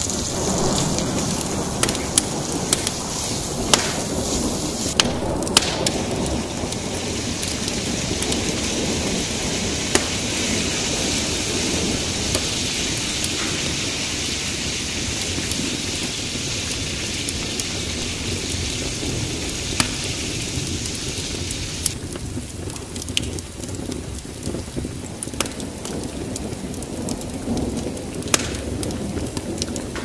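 Diced fat and meat sizzling in a wide steel frying pan, a steady hiss with scattered sharp pops of spitting fat. The high sizzle eases about two-thirds of the way through.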